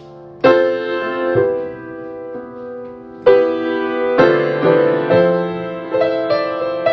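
Piano played solo: a few separate chords struck and left to ring, each fading away, then quicker notes and chords over the second half.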